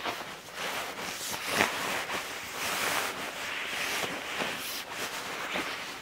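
Nylon hammock fabric and an inflatable sleeping mat rustling and rubbing together as the mat is pushed into the hammock's mattress pouch, with a sharper scrape about one and a half seconds in.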